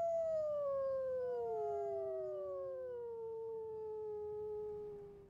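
Grey wolf howling: a long call that holds its pitch, then slowly falls, with a second howl overlapping it from about a second in. The sound cuts off suddenly at the end.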